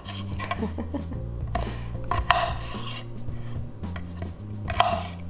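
Small kitchen knife cutting red potatoes into chunks on an end-grain wooden cutting board: several separate strokes, each a short knock as the blade goes through and meets the board, over background music.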